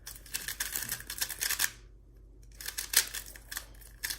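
GAN356 i speed cube being turned rapidly by hand: quick runs of plastic clicking and clacking as the layers turn, stopping for under a second about halfway, then going on.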